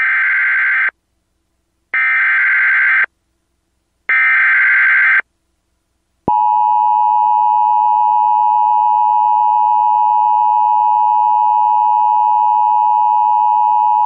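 Emergency Alert System alert: three one-second bursts of SAME header data, a buzzy warbling screech, each followed by about a second of silence. About six seconds in, the steady two-tone EAS attention signal (853 and 960 Hz) starts and holds, announcing a severe thunderstorm warning.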